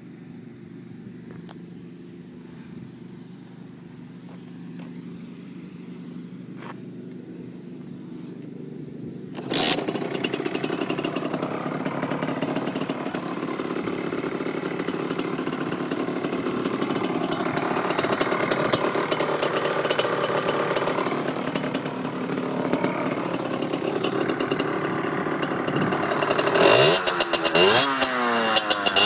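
Beta RR 50 motard's 50cc two-stroke single-cylinder engine running at a low, steady idle. About nine seconds in it suddenly becomes much louder and keeps running. Near the end it is revved up in quick rising-and-falling blips with a crackly edge.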